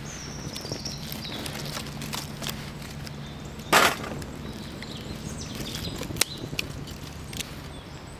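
Twig fire crackling in a small folding metal stove as dry sticks are snapped and fed in, with one loud crack about four seconds in.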